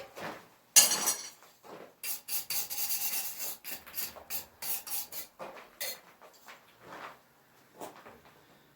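Rough rubbing and scraping strokes against the forged railroad-spike steel steak turner, in quick runs of about three to four strokes a second after one sharper stroke near the start, then thinning out to a few light ones.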